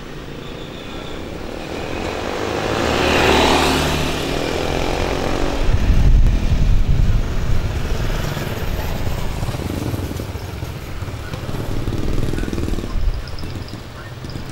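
Road traffic going past: one vehicle swells up and fades about three seconds in, then a low engine rumble from about six seconds in that wavers and eases off near the end.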